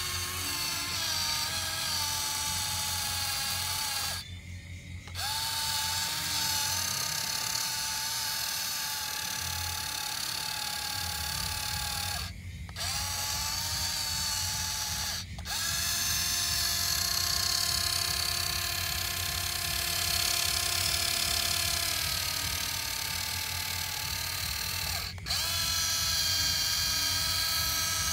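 Small electric motors and plastic gearing of a toy RC tractor whining steadily as it pushes through dirt, with a low gear rattle underneath. It cuts out briefly four times and comes back at a slightly different pitch each time.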